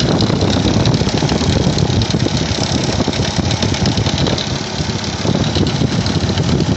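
Opel Rekord 2.2i engine running at idle with a steady, rapid metallic rattle from the timing chain, the sign of a slack or worn timing chain.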